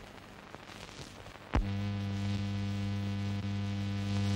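A steady low electrical hum with a buzzy, overtone-rich tone, cutting in abruptly with a click about a second and a half in and holding at one unchanging pitch: mains hum on the old film soundtrack.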